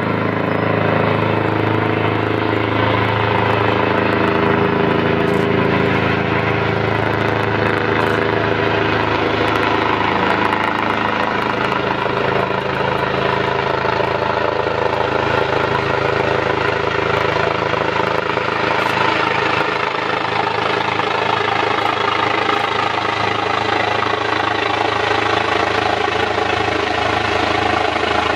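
Airbus H145 helicopter coming in to land, its main rotor and turbines running steady and loud overhead. In the first ten seconds several of its tones slide slowly down in pitch.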